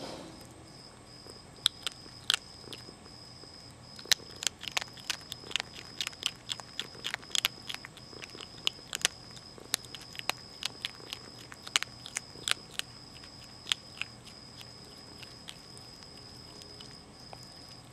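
Young Virginia opossum chewing dry cat food kibble: sharp, irregular crunches, several a second, that thin out and stop about four seconds before the end.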